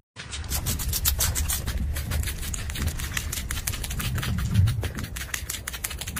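Small rabbit nibbling Napa cabbage leaves: rapid, irregular crunchy clicks of chewing, over a low rumble.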